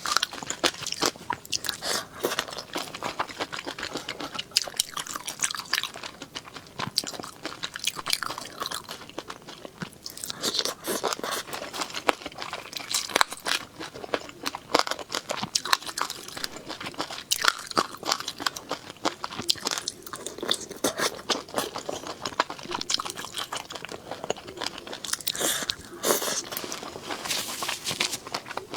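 Close-up eating sounds: repeated crunchy bites and chewing of food, irregular and continuous, with sharp crackles throughout.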